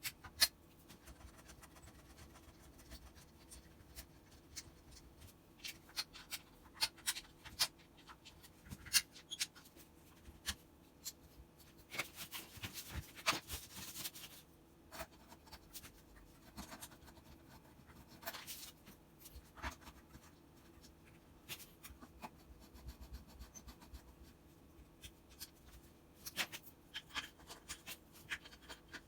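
Hand work on a hammer drill's parts: scattered light clicks and short scrapes, with a longer rubbing scrape about halfway through.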